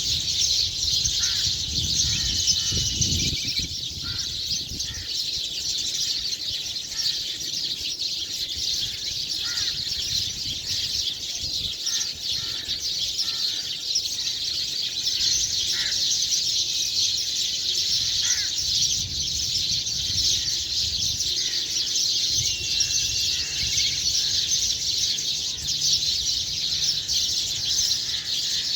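Dense, continuous chirping of many small birds together, a morning dawn chorus of overlapping high chirps and tweets with no break.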